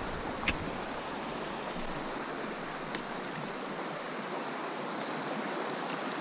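Steady rush of a river's water flowing over a shallow riffle, with two light knocks, about half a second in and again about three seconds in.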